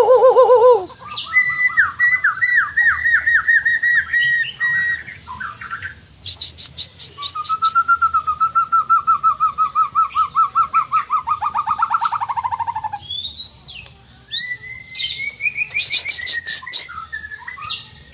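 Songbird singing a varied song: a run of quick sweeping notes, then a long fast trill that drops lower near its end, among scattered high chirps.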